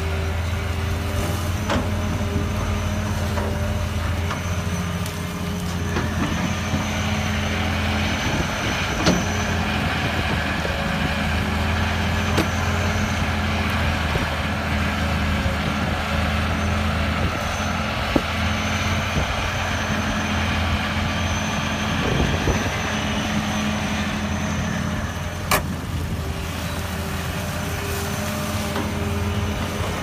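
Caterpillar 320B excavator's diesel engine running steadily under load as it digs and loads, with a steady high whine from its hydraulics. A few sharp knocks stand out, about a third, two-thirds and most of the way through.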